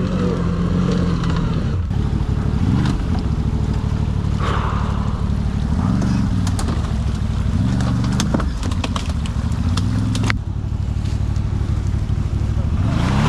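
ATV engine revving up and down in repeated bursts of throttle as the quad climbs a steep, muddy trail under load. Sharp knocks and snaps come through in the middle of the climb.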